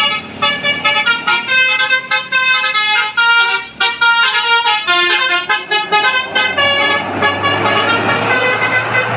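Basuri telolet bus horn playing a quick tune of short notes that jump from pitch to pitch. From about seven seconds in, a steady noise rises under the horn.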